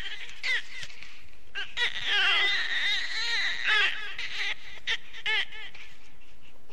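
Shrill, warbling squeals and chittering shrieks from a swarm of the ash tree's spider-like creatures, a horror-film sound effect. A few single squeals come first, then a dense overlapping chorus from about two to four seconds in, then a couple more cries near the end.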